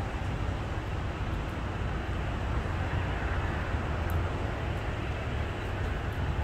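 Steady distant airport and traffic noise: a low rumble with a broad hiss over it, and no aircraft passing close.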